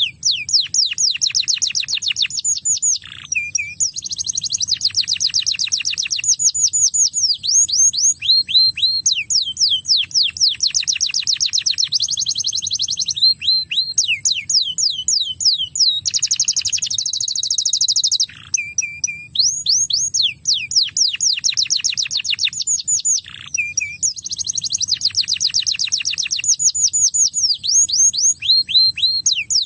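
Crested canary singing a long, fast song of rapidly repeated down-slurred notes strung into rolling trills, broken by a few brief pauses between phrases.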